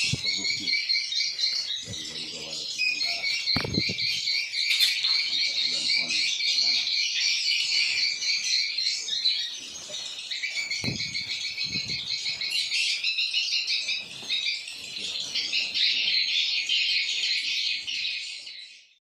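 Swiftlets (walet) twittering in a dense, unbroken chorus of many birds, with a few low knocks; the sound fades out at the very end.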